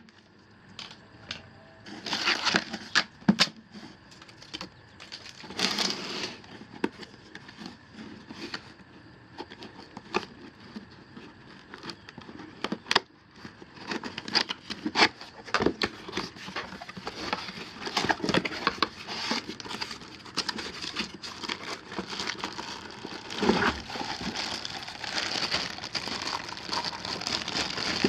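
A tool's cardboard box and its packaging being opened and handled: rustling and crinkling with scattered clicks and knocks, sparse at first and busier from about halfway through.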